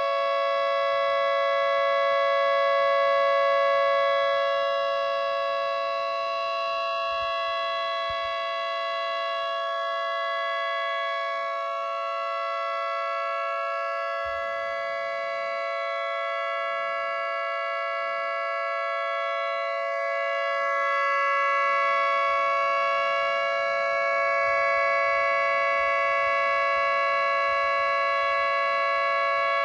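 Miniature 10/12-port dual-tone electric siren, a model of a GP8/GP12-style siren, running at full speed and sounding a steady two-note chord. The pitch holds level, with small swells in loudness. Run on 60 Hz mains it spins a little faster than intended, so it sounds just like a Federal 2T22.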